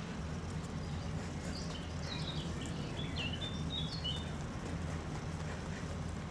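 A small bird sings a short run of high chirps from about one and a half seconds in to about four seconds, over a steady low rumble of background noise.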